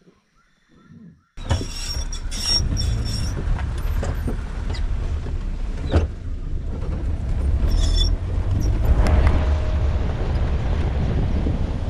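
Near silence for a little over a second, then a sudden change to a safari vehicle driving: a steady low engine rumble mixed with wind on the microphone, with occasional knocks and rattles.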